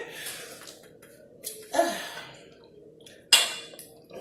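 Eating noises close to the microphone: a few separate short crunches and mouth sounds. The loudest is a sharp one about three seconds in.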